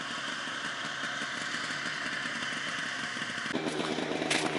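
Snowmobile engine running as the machine comes along the ice; about three and a half seconds in, the sound changes abruptly to a snowmobile engine idling close by. A sharp click comes near the end.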